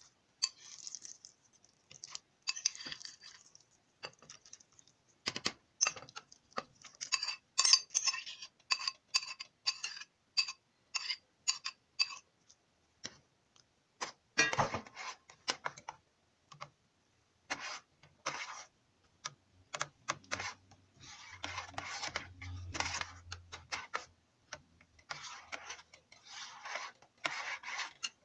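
A metal spoon stirring coconut milk in a pot, clinking and scraping against the pot's sides, with a run of quick clinks in the first half and swishing, scraping strokes later.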